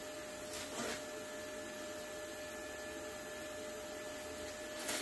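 Powered-up plasma cutter standing by: a steady electrical hum with a thin whine and fan hiss, with a brief rustle of the torch and metal being handled about a second in.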